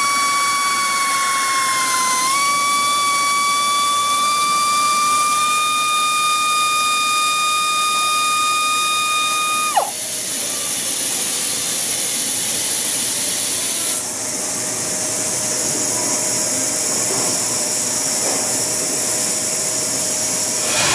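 Gison GPD-231 air-powered drill running at speed with a steady high whine, its pitch creeping up slightly as it core-drills a stone slab. About ten seconds in the whine falls away sharply as the motor winds down, leaving a steady hiss of compressed air.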